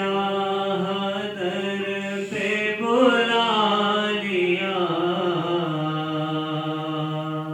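A voice reciting a naat, unaccompanied, in one long drawn-out sung line. The pitch rises and falls about three seconds in, then settles into a long held note that breaks off at the end.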